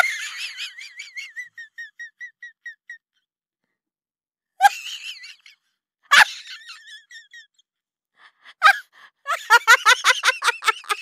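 Young women laughing hard: a high-pitched, squealing giggle in quick repeated pulses that fades over the first few seconds, two short outbursts in the middle, and a fast run of laughter near the end.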